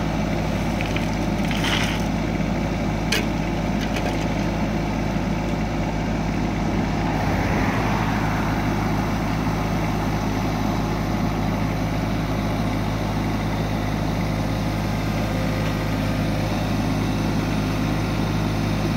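Kubota mini excavator's diesel engine running steadily.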